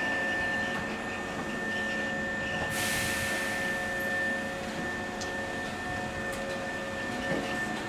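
Hankyu 5300 series electric train standing at the platform just before departure: its equipment gives a steady high-pitched whine over a low hum. About three seconds in, a steady hiss joins and continues.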